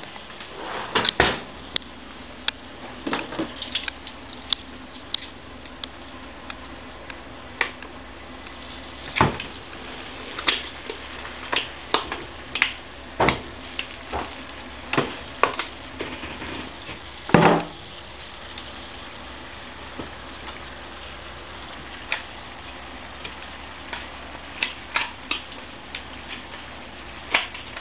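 Freshly roasted chickens sizzling hot in their pan: a steady hiss, broken by irregular sharp clicks and knocks of utensils against the pan, the loudest about two-thirds of the way through.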